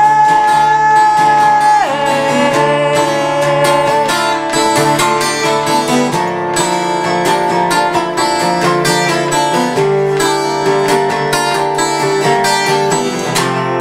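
Acoustic guitar and resonator guitar playing an instrumental passage of a folk-rock song, strummed and picked. A long held note opens it and drops in pitch about two seconds in.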